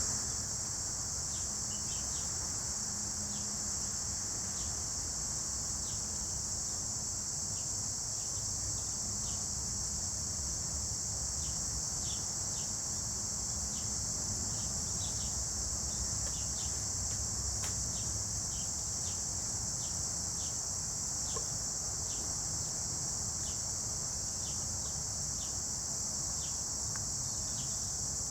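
Steady high-pitched chorus of crickets, with short chirps repeating about once or twice a second beneath it and a low rumble underneath.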